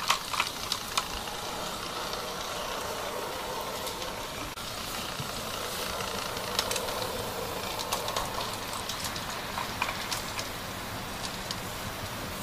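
Homemade garden-scale locotractor running on transformer power with its petrol engine off: the electric drive motor whirs steadily as it rolls along the track, with a few sharp clicks and a steady hiss underneath.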